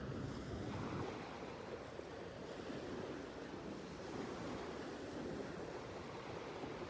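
Small sea waves breaking and washing onto the shore, a steady rushing wash.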